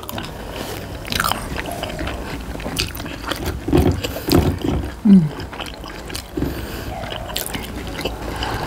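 People chewing and biting into pork momos, steamed dumplings, with many small wet mouth clicks and smacks.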